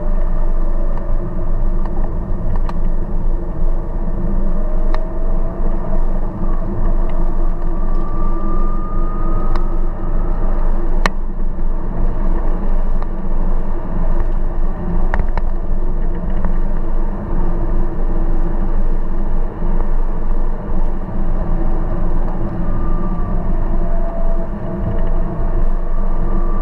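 A car driving along a road: steady engine and road noise, the engine pitch rising gently a few times, with a few sharp clicks.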